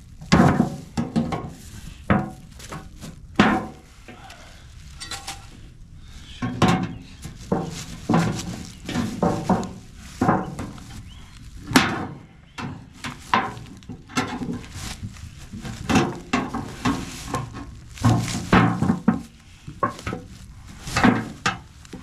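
Irregular metallic clanking and knocking, a tin can being worked with a tool, the strikes coming at uneven intervals.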